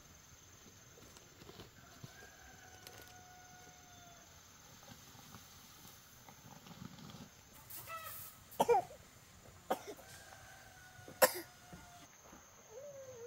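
A rooster crows faintly twice, each call long and even. Near the end there is a rustle and three sharp knocks as a basket and sack are handled inside the chicken coop.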